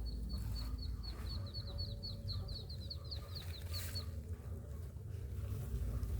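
A bird calls in a rapid series of short, high chirps, about four to five a second, that stops about four seconds in. A steady low rumble runs underneath.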